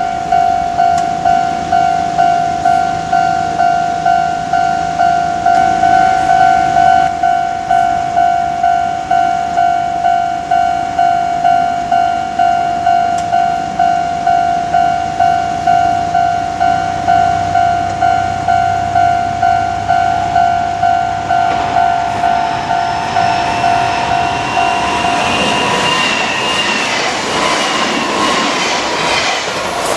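Electronic level-crossing warning bell ringing over and over, about two strikes a second, at a Kintetsu Minami Osaka Line crossing. A train runs through the crossing from about 20 seconds in, louder toward the end with high squealing tones from the wheels. The bell stops about five seconds before the end.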